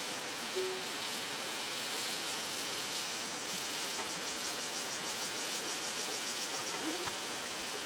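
Steady insect chirring, pulsing rapidly and evenly, over a dense hiss.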